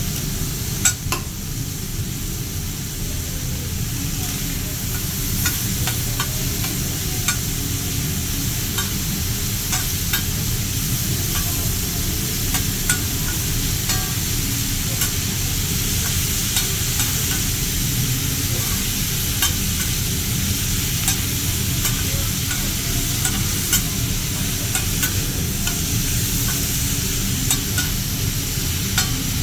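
Food sizzling on a teppanyaki griddle, a steady frying hiss with scattered sharp clicks and taps of metal spatulas on the steel.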